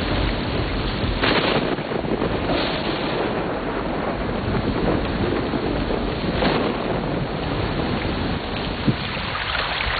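Thunderstorm in the desert: heavy rain pouring down with rolling thunder, louder surges about a second in and midway, and a short sharp crack near the end.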